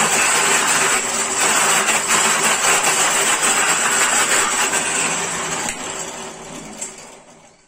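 Schulz FSB16 bench drill press running, its bit cutting into a wooden workpiece slid along the jig, a loud steady machine noise. From about five and a half seconds in it winds down and fades out over about two seconds.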